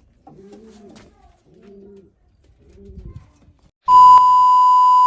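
Domestic racing pigeons cooing softly in a loft, several low rolling coos. Near the end a loud, steady electronic beep about a second and a half long cuts in over them.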